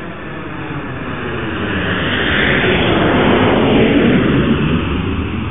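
An aircraft flying past: its engine noise swells steadily, peaks about three to four seconds in with the pitch dropping as it passes, then begins to fade.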